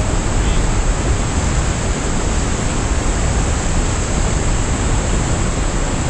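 Steady rushing of a waterfall and a fast, rocky river of white water, with a heavy low rumble underneath.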